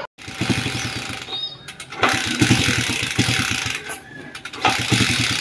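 Single-cylinder Bajaj Pulsar 150 motorcycle engine, fed on LPG, being cranked to start: it turns over in a rapid, even chugging that runs loud for a few seconds, drops off about four seconds in, then picks up again.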